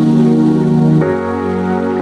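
Calm new-age background music: sustained synth chords that change about a second in.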